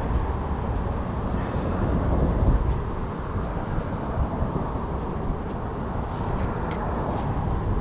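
Steady low rumble of outdoor background noise, with a few faint clicks near the end.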